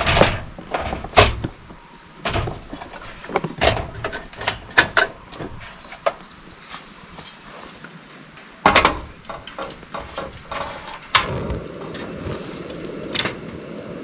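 Clatter and knocks of camp cookware being handled and set down, then about eleven seconds in a portable butane cassette stove's burner lights and runs with a steady rushing hiss under a pot of water being heated.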